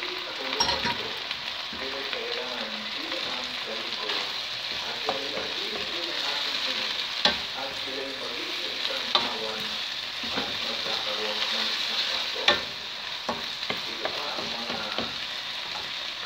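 Kamote (sweet potato) leaves and chopped vegetables sizzling steadily in a hot wok as they are stirred and tossed with a wooden spatula, with a few sharp knocks of the spatula against the pan.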